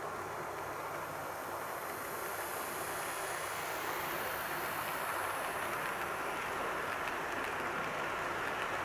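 KATO model train, an EF65 electric locomotive hauling 14 series passenger cars, running along the track: a steady rolling rattle of wheels on rail and a motor, growing a little louder about midway as the train passes close.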